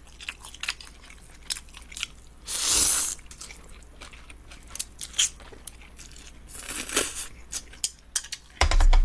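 Cold buckwheat noodles (mul-naengmyeon) being eaten up close: chewing with many small mouth clicks, and two loud noodle slurps, about two and a half seconds in and again about seven seconds in. A loud bump comes near the end.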